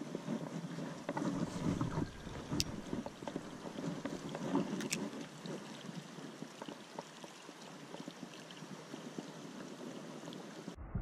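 Stream water running, with handling noise from a spinning rod and reel as a lure is fished. Two sharp clicks come about two and a half and five seconds in.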